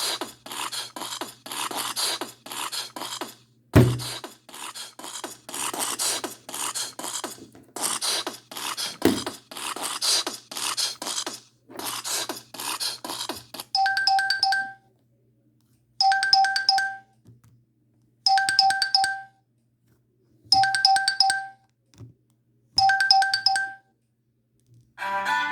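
Stock ringtones of the Huawei Ascend Y300 phone. A fast, rhythmic electronic tune with sharp percussive beats plays for about the first thirteen seconds, then a different ringtone follows: a steady ring of a few pure tones, repeated five times about two seconds apart, each ring lasting about a second. Near the end another ringtone's tune begins.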